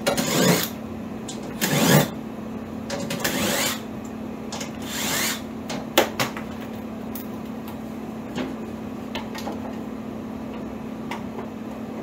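Tools and parts being handled at a sheet-metal electrical panel: several short scrapes and rubs in the first half and a sharp click about six seconds in, then small ticks, over a steady low hum.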